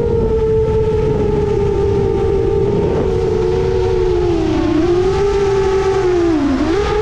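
A 7-inch FPV quadcopter's Emax Eco II 2806.5 brushless motors spinning HQ 7x3.5x3 three-blade props, whining steadily in flight over a low rush of noise. The pitch sags twice as the throttle eases, once about two-thirds of the way in and again more deeply near the end.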